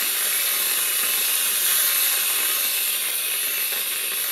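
Aerosol can of whipped cream spraying, a steady hiss held through one long squirt.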